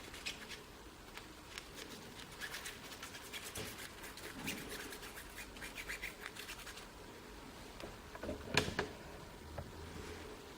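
Hands working grease onto a lathe apron gear part and handling it: faint scratching and rubbing with many light clicks, and one sharper knock about three-quarters of the way through.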